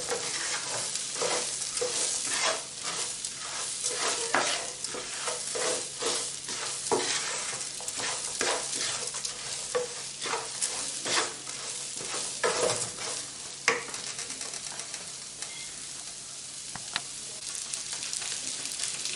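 Chopped vegetables, carrots among them, frying and sizzling in olive oil in a pan, stirred with a spoon that scrapes the pan in frequent short strokes. The stirring stops about two-thirds of the way through, leaving a steady, quieter sizzle.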